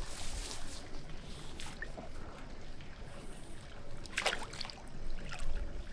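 Landing net dipped into the river at the bank to release an asp, water sloshing and trickling through the mesh, with a short splash about four seconds in.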